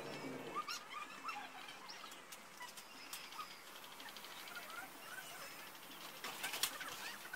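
Scattered faint bird chirps, with a few sharp clicks about six and a half seconds in.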